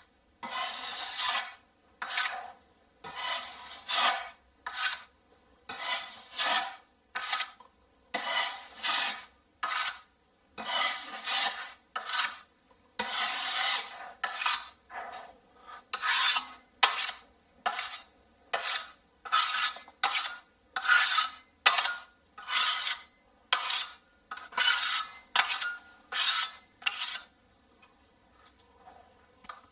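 Hand sanding of dried drywall joint compound over a patched hole: regular back-and-forth rasping strokes, about two a second, pausing briefly near the end.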